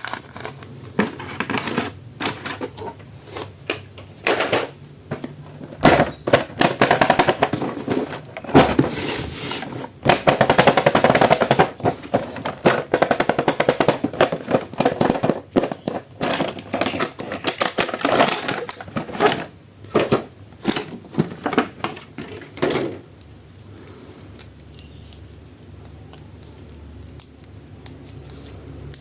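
Plastic toy packaging being handled and crinkled, a dense run of rapid crackles and clicks that thins out to a few faint clicks after about 23 seconds.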